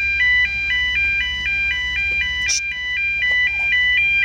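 Electronic warning alarm sounding a rapid two-tone pattern, high and low notes alternating about four times a second, over a steady low rumble.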